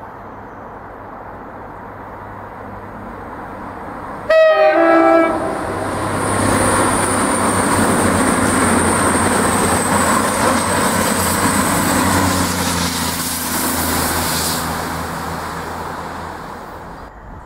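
Cross Country Class 220 Voyager diesel multiple unit sounds a short two-tone horn, high note then low, about four seconds in. It then passes at speed: loud engine and wheel noise with a high whine that falls slightly in pitch, fading away near the end.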